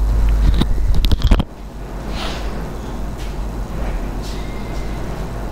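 Rustling, clicks and knocks of a clip-on lapel microphone being handled as the wearer moves, for about a second and a half. It then cuts to a steady background noise with a low hum.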